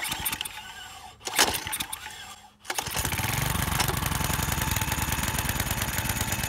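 Single-cylinder Tecumseh snowblower engine being cold-started by its pull cord: irregular cranking and sputtering, then the engine catches about three seconds in and runs steadily.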